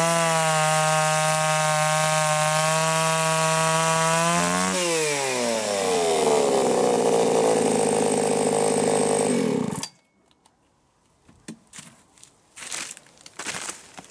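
Two-stroke chainsaw running at full revs as it cuts through a thick wooden scaffold plank; about five seconds in the revs drop and it runs slower until the sound stops abruptly near ten seconds. After that, a few light knocks and rustles.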